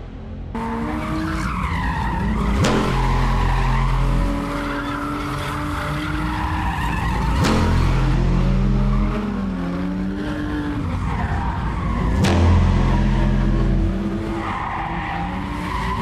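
Drift cars sliding in tyre smoke: engines revving up and down with tyres squealing and skidding, and a few sharp cracks along the way.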